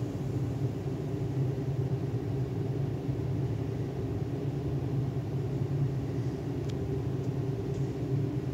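Steady low hum and rumble of machinery in an indoor pool hall, with a couple of faint ticks near the end.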